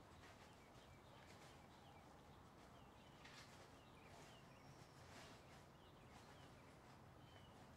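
Near silence: faint outdoor quiet with scattered soft bird chirps and a few faint rustles.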